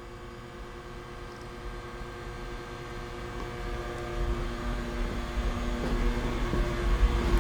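Steady mechanical hum with several held tones, growing gradually louder, with a low rumble building near the end.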